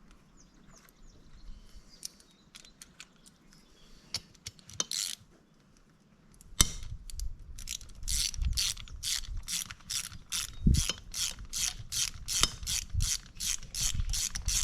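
Hand ratchet wrench working bolts on a motorcycle-type engine, with quick back-and-forth swings that each give a burst of ratchet clicks, about three a second. Before that come a few scattered light metallic clicks and taps of tools and parts being handled.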